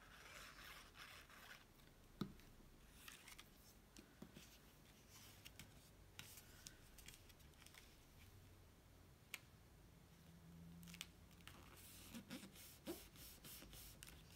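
Near silence with faint paper-handling sounds: cardstock rustling and a few light clicks and taps as the card is glued, folded and pressed flat by hand.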